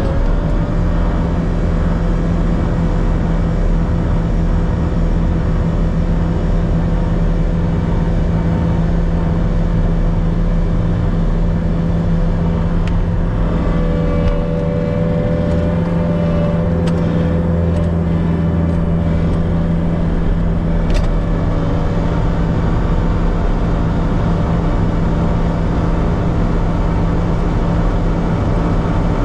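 Diesel engine of a farm machine running steadily as it drives, heard from inside the closed cab as a constant low hum.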